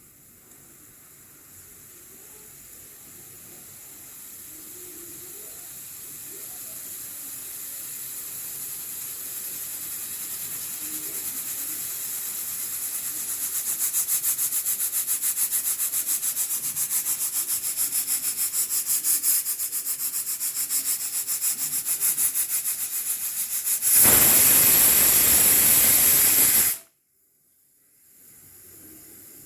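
Hawkins pressure cooker coming up to pressure: a steam hiss grows steadily louder, then turns into a fast, even pulsing as steam starts to escape past the pressure regulator weight. Near the end it lets go in a loud full-blast steam whistle for about three seconds that cuts off suddenly, followed by a faint hiss.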